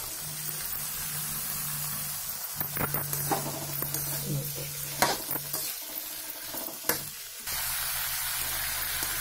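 Chopped green beans, potatoes and cauliflower sizzling in hot oil and spices as they are stirred in the pan with a spatula. A few sharp knocks of the spatula against the pan come through, the loudest about five seconds in.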